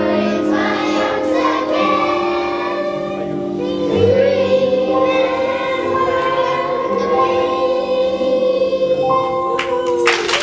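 A class of children singing together over backing music, ending on one long held note; applause breaks out right at the end.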